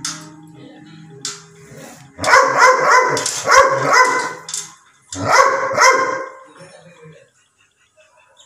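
Doberman barking: a single bark at the start and another about a second later, then a fast run of barks lasting about two and a half seconds, and a shorter run about five seconds in.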